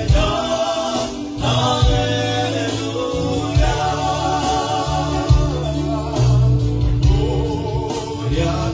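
Men singing a worship song together into microphones, amplified, over a strummed string instrument and deep bass notes that change every second or so.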